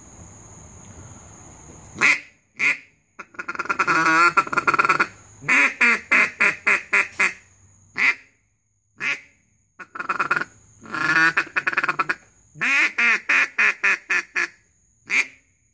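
Hand-turned maple duck call with an Echo open-water single-reed insert, blown in quacks. From about two seconds in come a few single quacks and several longer strings of quick quacks, with short pauses between.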